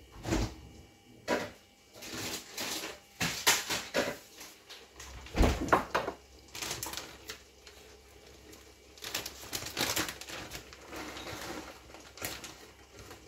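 Irregular light clicks and knocks of kitchen utensils and dishes being handled, with a plastic bag of grated cheese crinkling in the last few seconds.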